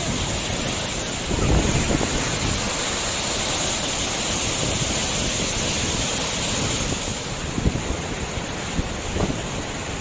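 Tortum Waterfall's water pouring down the cliff in a steady, even rush, with a few short gusts of wind buffeting the microphone.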